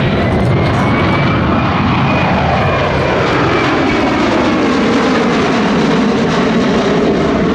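Boeing P-8 Poseidon's twin CFM56-7 turbofans on a low pass overhead: loud, steady jet noise with a high whine, and tones that fall in pitch in the middle as the aircraft goes by.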